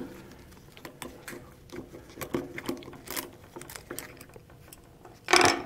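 Faint, irregular light metallic clicks and scrapes of a 5 mm hex key turning out the bottom screws of a PVM housing on a hydraulic valve.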